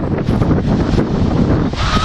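Wind buffeting the microphone: a loud, fluttering rumble with no steady tone, strongest in the lows.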